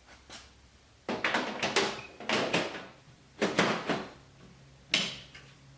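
Clattering rattles and knocks of server hardware and power cables being handled: four bursts, the last a single sharp knock about five seconds in, over a faint steady low hum.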